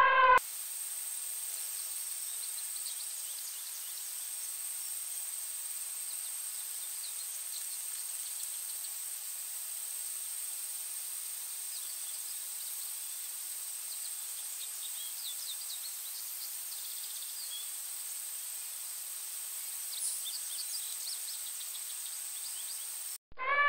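The tail of an elephant trumpet call cuts off about half a second in. After it comes an outdoor nature ambience bed: a steady hiss with a continuous high-pitched whine and faint, scattered short chirps.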